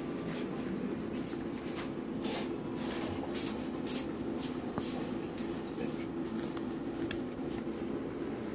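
Scratching and rustling on a quilted bedspread as a puppy scrambles and paws about on it, in quick irregular scrapes over a steady low hum.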